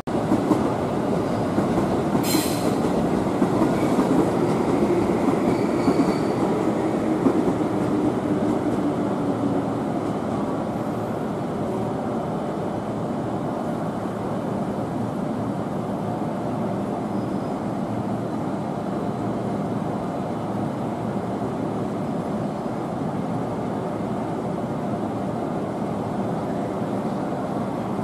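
EF81 electric locomotive with its train at a station platform: a low tone falls and fades over the first ten seconds, with a sharp metallic clank about two seconds in, then the locomotive settles to a steady running hum.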